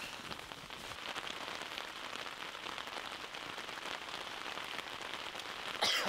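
Steady rain falling, a dense patter of many small drop hits with no let-up. A short, louder noise comes just before the end.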